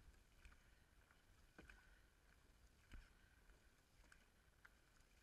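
Dragon boat crew paddling in unison: faint splashing of paddles through the water, with a sharp knock about every second and a quarter as the strokes land.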